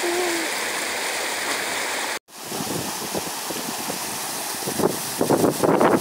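River rapids rushing over rocks: a steady hiss of running water, cut off for a moment about two seconds in. Near the end, wind buffets the microphone in irregular gusts.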